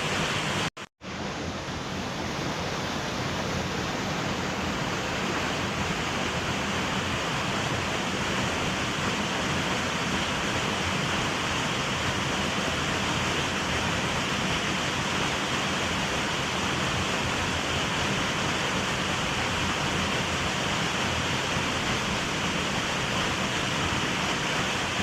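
Small waterfall, water falling in a steady, even rush. The sound cuts out briefly just under a second in, then runs on unchanged.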